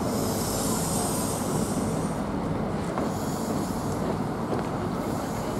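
Great Western Railway HST coaches rolling past on the line: a steady rumble of wheels on rail with a thin high hiss over it.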